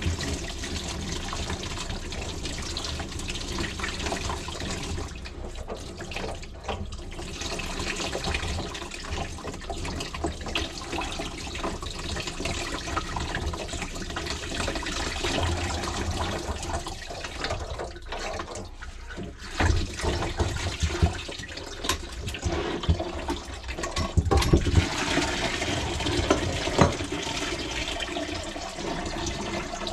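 Backed-up water from a grease-clogged kitchen sink drain pouring and splashing into a plastic bucket as the brass trap is taken apart, with occasional knocks of the fittings being handled.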